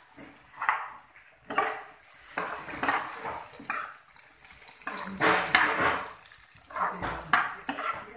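A spatula scraping and knocking against a nonstick frying pan in irregular strokes as julienned carrots and onions are stir-fried, with a frying sizzle underneath.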